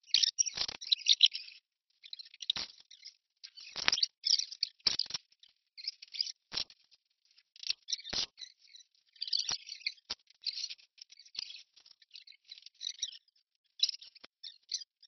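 Adhesive tape being pulled off its roll in short crackling rips, again and again with brief pauses, with a few sharp knocks in between as it is pressed and handled.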